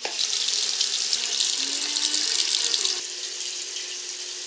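Water running from a tap into a sink, a steady rushing flow that is stronger for about three seconds and then eases a little.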